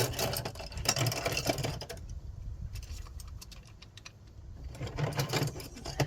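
Tools being handled, rattling and clicking rapidly in two spells: through about the first two seconds and again near the end.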